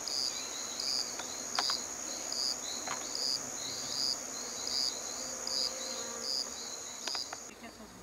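Insects calling: a steady high-pitched trill that stops shortly before the end, over a second insect's short chirps repeating about once every 0.7 s. A few faint clicks are heard.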